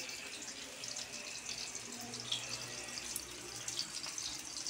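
Sliced tomatoes sizzling in hot oil in a frying pan: a steady hiss with scattered small pops.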